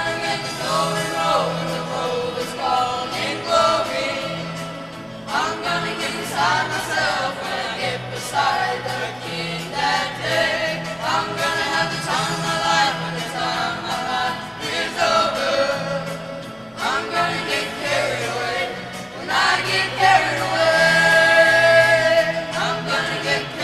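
A school choir singing, with held notes and rising phrases over instrumental accompaniment with a low bass line.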